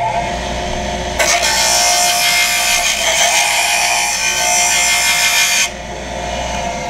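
Delta 23-580 5-inch bench grinder running steadily. From about a second in, a high-speed steel slitting saw blade is pressed against the wheel to sharpen it, giving a harsh grinding hiss for about four and a half seconds. The motor then runs on alone after the steel is lifted off.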